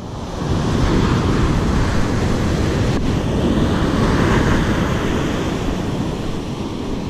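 Ocean surf breaking on the beach and washing up the sand, with wind buffeting the microphone. The sound swells over the first second and stays loud.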